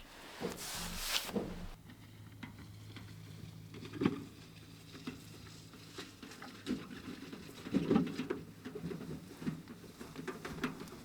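Soft, scattered knocks and taps of handling over a low steady hum, with a brief rustling stretch in the first second and a half.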